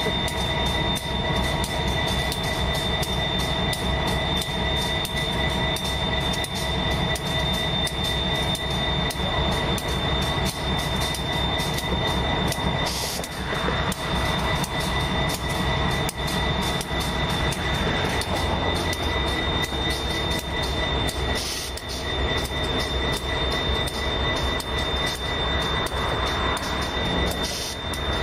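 Railcars rolling past with their steel wheels squealing against the rail, a steady high-pitched squeal held over a low rumble and many quick clicks from the wheels.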